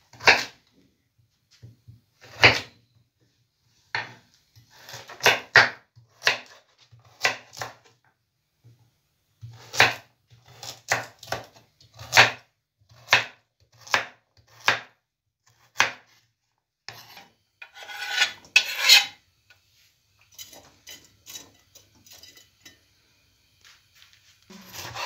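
Knife chopping on a wooden cutting board: irregular sharp strikes, some in quick pairs, with a denser scraping patch a little before the end.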